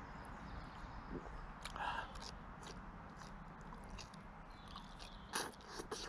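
A person biting and chewing grilled asparagus, with small wet mouth clicks and two louder crunches, one about two seconds in and one near the end.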